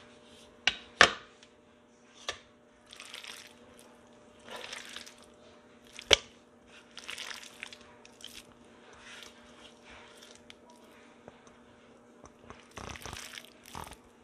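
Raw diced pork being scooped by hand off a wooden chopping board into a stainless steel bowl. There are several short, soft scraping and rustling bursts and a few sharp knocks, the loudest about six seconds in.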